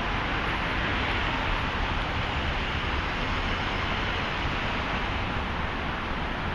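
Steady city background noise: a constant, even rumble and hiss with no distinct events.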